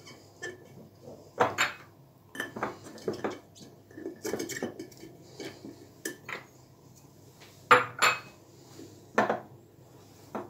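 Garlic cloves and green peppers going into a glass pickling jar through a plastic funnel: a dozen or so irregular clinks and knocks against the glass and funnel, the loudest about eight seconds in.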